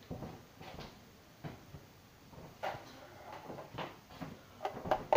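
Scattered light knocks, clicks and rustles of things being handled, a few separate ones at first and a quick cluster near the end.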